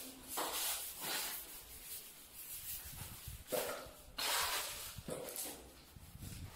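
Steel trowel scraping and spreading tile adhesive: several short scraping strokes with pauses between them.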